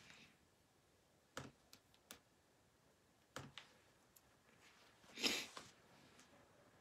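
Near silence in a small room, broken by a few faint clicks and one short rustle of hiss about five seconds in.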